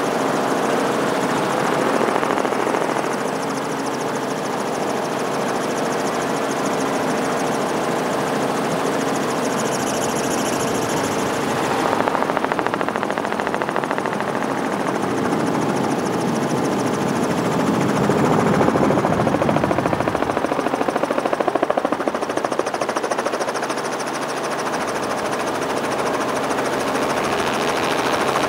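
Helicopter running steadily: engine and rotor noise heard from aboard the helicopter.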